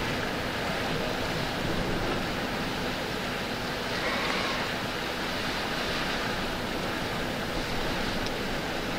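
Steady rushing noise of a shallow river flowing over rocks, with no distinct calls or splashes standing out.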